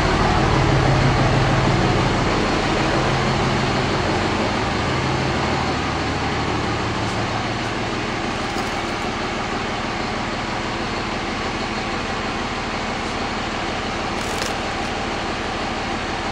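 Dodge 5.9 Cummins inline-six turbo-diesel idling steadily, hot and near operating temperature. Its low hum fades about six seconds in, leaving a steady mechanical whir.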